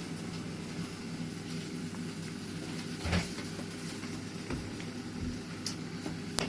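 Steady low mechanical hum, with a short knock about three seconds in and a sharp click near the end.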